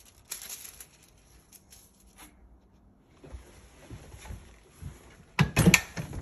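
Thin gold stamping foil rustling and crinkling as it is handled and laid on the press. Near the end comes a cluster of loud knocks as the lever of a manual hot-foil stamping press is pulled and the heated head clamps down onto the foil.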